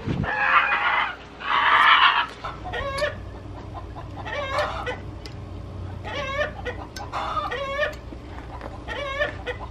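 Backyard chickens clucking in a string of short, repeated calls that sound like a printer, with two loud, harsh bursts in the first couple of seconds.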